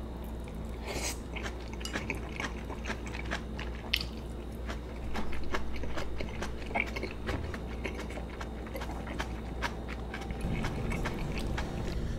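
Close-miked biting and chewing of a mouthful of braised kimchi: wet mouth sounds with many small sharp clicks and the odd crunch.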